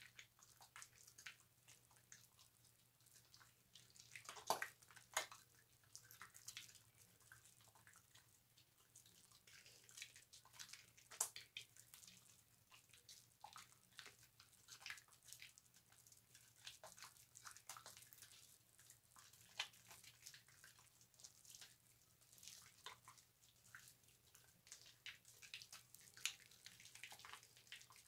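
Wet bar soap being worked into a loofah: a faint, irregular run of wet squishes and crackling clicks of lather, with a few louder ones now and then.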